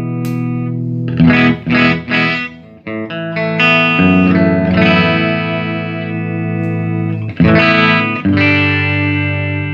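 Electric guitar played through a 1975 Fender Twin Reverb master-volume amp, being sound-tested after servicing. A held chord rings, then chords are strummed in short stabs and left to ring, with a new strum about seven and a half seconds in.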